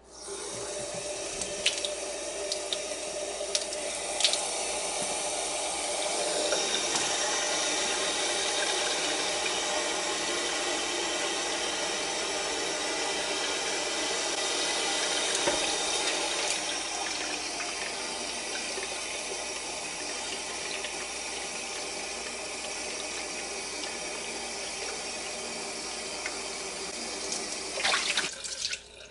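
Hot water running from a kitchen mixer tap into a ceramic sink, a steady rush that starts abruptly as the tap is opened and cuts off near the end, splashing over the plastic blender jug held under the stream. A few sharp knocks come in the first seconds and again just before it stops.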